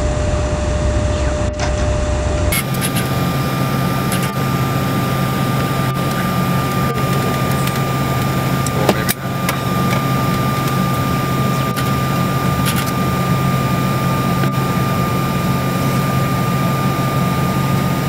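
Steady drone of an airliner's cabin: ventilation and engine hum with a couple of steady tones. The hum shifts abruptly to a different pitch about two and a half seconds in, and there is a brief click near the middle.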